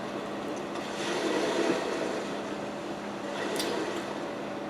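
Steady low room hum with a faint even noise, with one short sharp click about three and a half seconds in.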